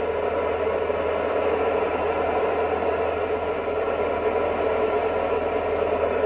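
Steady hiss of static from an amateur radio transceiver's speaker, tuned to the ISS repeater downlink near 437.8 MHz. No voices come through: the space station has dropped too low in the sky for the signal to be heard.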